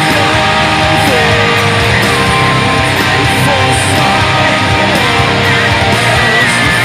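Heavy metal music: a distorted EVH Wolfgang Standard electric guitar through its Wolfgang humbucker, playing along with a full band track, with a sliding melody line above the steady, dense riffing.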